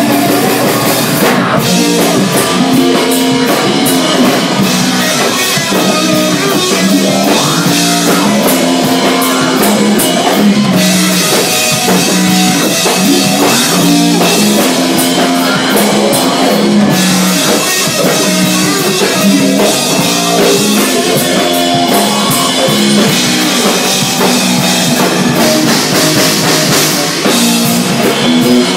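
Live rock band playing an instrumental passage: electric guitar, electric bass and drum kit with cymbals, loud and unbroken.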